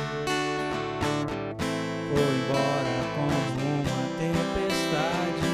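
Song's instrumental passage with strummed guitar between sung lines, a melodic line gliding over the chords.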